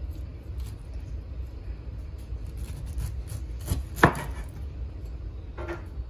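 Wide cleaver slicing the rind off a whole pineapple on a wooden cutting board: repeated short cutting and scraping strokes through the rind, with a sharp knock of the blade on the board about four seconds in and a smaller one near the end.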